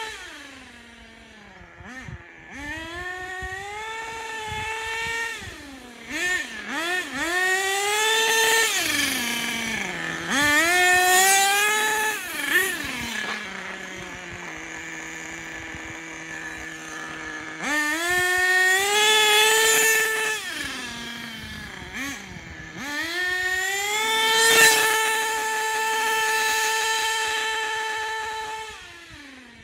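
HPI Racing Monster ATV radio-controlled quad's two-stroke nitro engine, running on 25% nitro fuel, revving up and down in repeated bursts as the quad is driven. About midway it drops to a low steady idle for a few seconds. It then holds a high, steady pitch for several seconds before the throttle closes near the end.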